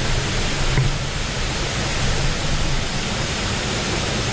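Fast-moving river water rushing steadily, an even, unbroken noise.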